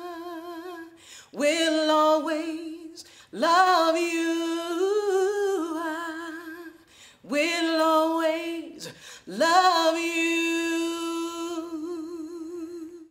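A woman singing a cappella. A held note with vibrato trails off at the start, then come four phrases, each sliding up from low into a long note held with a wide vibrato.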